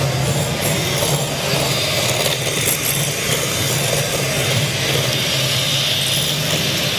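Electric hand mixer running steadily, its twin beaters whipping an egg-based sponge batter in a glass bowl. The batter is still slightly runny and not yet whipped enough.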